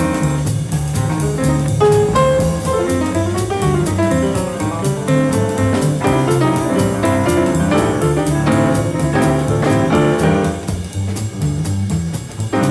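Live jazz quartet: an acoustic grand piano solo over a steady double bass line and a drum kit keeping time on the cymbals.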